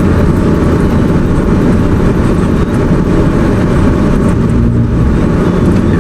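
Steady, loud vehicle noise heard from inside a car's cabin, with a heavy low rumble and no distinct events.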